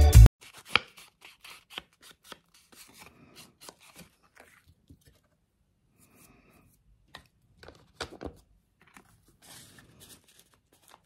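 Background music cuts off abruptly at the start, then quiet handling of tea-stained paper cards and book-page scraps: soft rustles and scattered light clicks and taps as the pieces are shifted and laid down on a craft mat.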